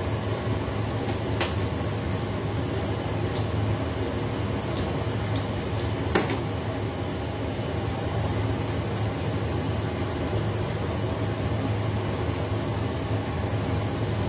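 Steady low hum of a running fan, with a few short sharp snaps scattered through as stalks of leek are broken by hand, the loudest about six seconds in.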